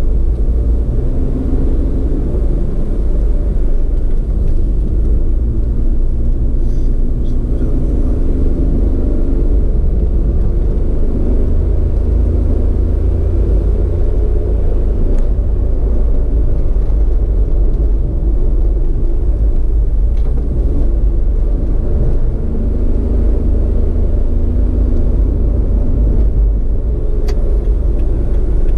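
A road vehicle under way at steady speed: a continuous low engine and road rumble, with the engine's pitch drifting slightly up and down.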